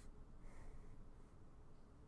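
Faint scratching of a Muji pen drawing lines on sketchbook paper, over a low background hiss.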